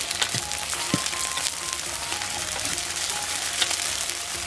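Hot oil sizzling and crackling steadily in a wok as onion, scallion, ginger, garlic and whole spices fry in it, infusing the oil for chili oil.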